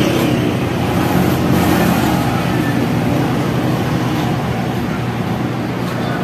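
Highway traffic passing close by: the steady engine and tyre noise of road vehicles, easing slightly toward the end.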